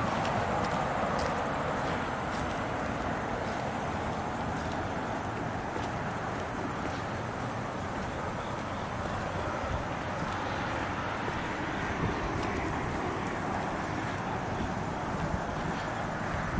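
Steady outdoor background noise, a broad rush without any clear pitch, with a high insect-like buzz that swells and fades several times.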